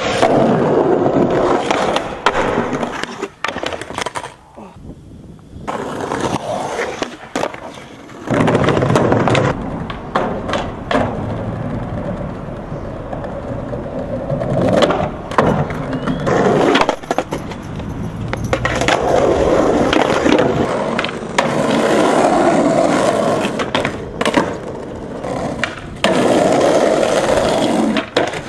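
Skateboards in a run of short clips: urethane wheels rolling over concrete and wooden boards, broken again and again by sharp cracks of tail pops, board slaps and landings.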